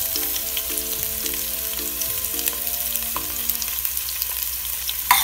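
Sliced onions sizzling steadily as they fry in hot oil in an aluminium pot. A spoon scrapes and knocks against the pot as garlic paste goes in and is stirred with a wooden spoon, with a louder knock near the end.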